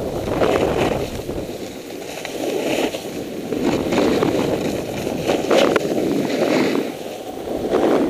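Snowboard sliding and carving on packed, groomed snow: a rough scraping rush that swells and eases with each turn every second or two.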